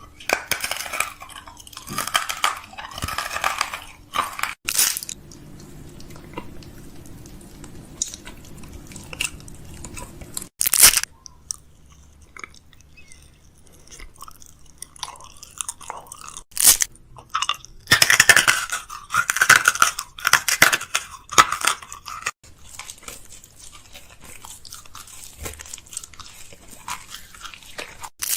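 Crinkling and crunching handling noise with a few sharp clicks and knocks: food packaging and plastic containers being handled while a fridge is restocked. Two longer bursts of crackling, one at the start and one about two-thirds of the way through, with separate knocks in between.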